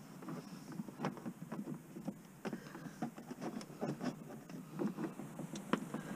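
Hands handling wiring and plastic connectors by a radio under a van's dashboard: irregular small clicks, taps and rustles, several a second.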